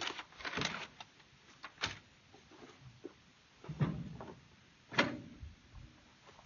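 Rummaging through tools and loose items on a pickup truck's tailgate and bed while searching for screws: a handful of separate knocks, clunks and rustles, the sharpest about five seconds in.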